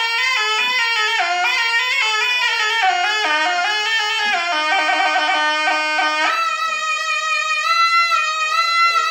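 Javanese sompret, a wooden shawm, playing a quick melody of stepping, ornamented notes without a break, then holding one long high note with slight bends from about two-thirds through.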